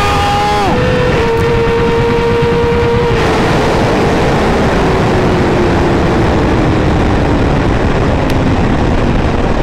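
Superbike's inline-four engine at high revs, shifting up twice in quick succession in the first second or so. From about three seconds in, heavy wind rush on the microphone dominates while the engine note falls slowly and steadily as the bike rolls off the throttle at the end of the run.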